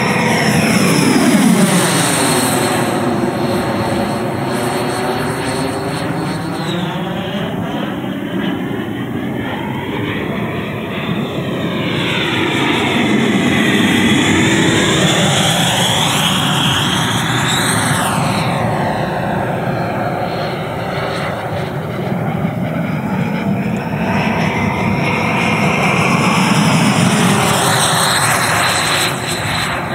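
Electric ducted fan of a large radio-control model jet (JETFAN-120 PRO with an HET 800-series brushless motor) under power: a continuous whine that swoops up and down in pitch several times as the jet makes fast passes and climbs.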